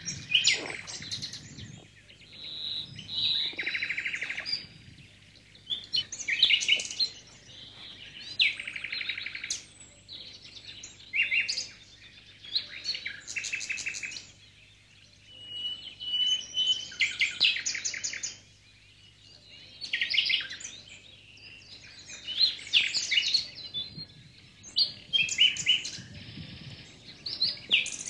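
Songbirds singing: repeated quick, high-pitched phrases of chirps and trills, a new burst every second or two.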